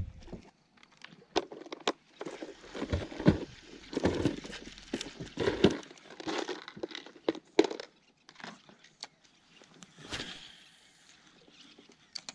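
Plastic tackle box and lure packaging being handled: a string of irregular clicks, rattles and crinkles.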